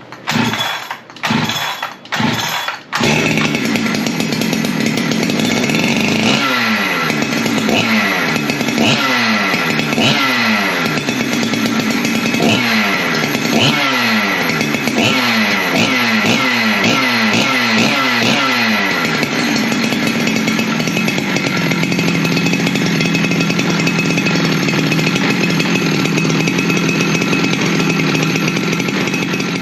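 Husqvarna 372XP two-stroke chainsaw, fitted with a 52 mm big bore kit, being pull-started on choke for its first test fire: a few short bursts, then it catches about three seconds in. It is revved again and again, the pitch rising and falling back, then settles into steady running for the last ten seconds or so.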